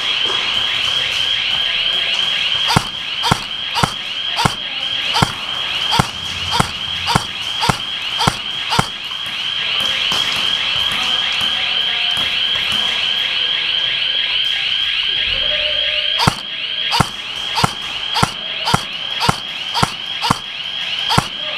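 Airsoft guns firing single shots: a run of sharp cracks, often about two a second, that thins out midway and picks up again near the end. Under them runs a steady high-pitched tone.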